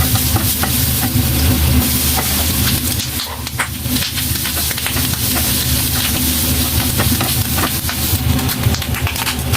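Tofu and vegetables sizzling in a hot pan as they are stir-fried, with short clicks of a utensil against the pan and a low steady hum underneath.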